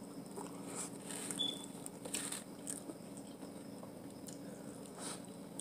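A person eating crawfish and shrimp close to the microphone: faint chewing and mouth smacking with a handful of soft clicks, over a low steady hum.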